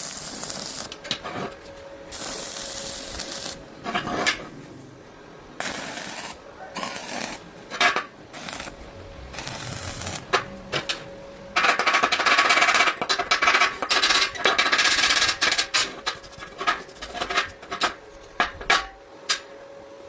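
Metal clinking and scraping, like hand tools at work on metal, with a steady hissing scrape lasting about four seconds around the middle.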